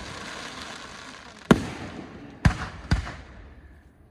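Fireworks going off: three sharp bangs, one about a second and a half in and two close together about half a second apart near the three-second mark, each trailing a hissing, crackling tail that fades away near the end.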